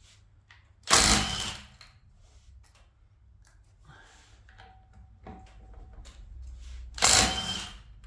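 Milwaukee M18 Fuel half-inch mid-torque cordless impact wrench hammering in two short bursts, about six seconds apart, undoing wheel nuts. Light clicks and clinks of socket and nuts between the bursts.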